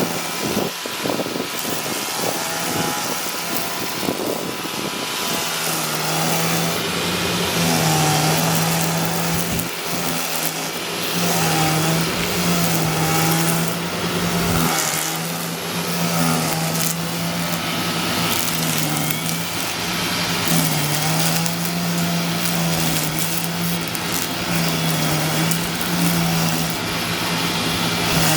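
String trimmer running and cutting grass. Its motor note drops briefly and recovers every couple of seconds as the line bites into the grass, with the rasp of cut grass over it.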